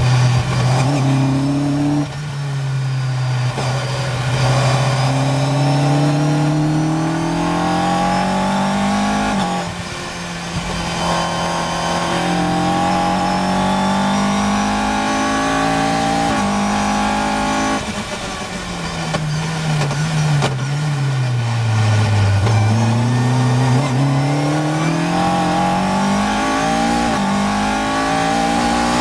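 Caterham C400 race car's engine heard from the cockpit under hard acceleration, rising in pitch through the gears with a drop at each upshift, about ten seconds and sixteen seconds in. Its pitch then falls for several seconds as the car slows for a corner, and it climbs again to the end.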